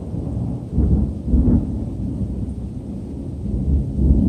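Thunder rumbling low and deep. It swells about a second in, eases off, then builds again near the end.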